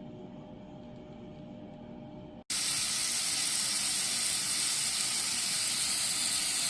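A low, steady room hum, then a loud, even hiss that cuts in suddenly about two and a half seconds in and holds steady.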